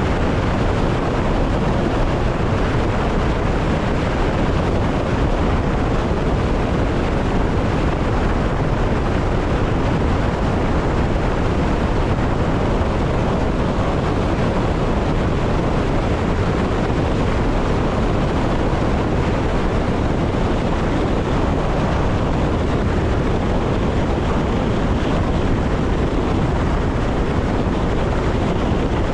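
Steady running noise of an electric passenger train, heard from the driver's cab: an even rumble with no breaks or clicks.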